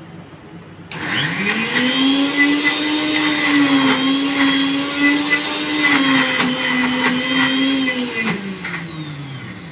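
Electric mixer grinder with a steel jar grinding soaked chickpeas, herbs and spices into falafel paste: the motor starts about a second in, spins up quickly to a steady whine, then winds down with falling pitch near the end.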